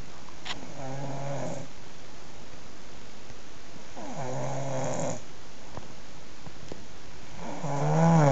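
A sleeper snoring: three drawn-out, pitched snores about three seconds apart, the last the loudest.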